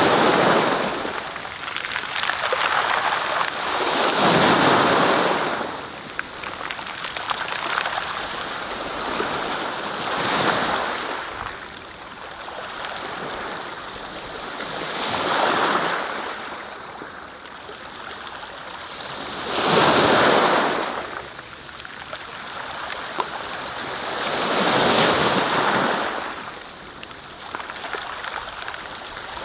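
Surf: waves washing in and breaking, swelling and fading about every five seconds.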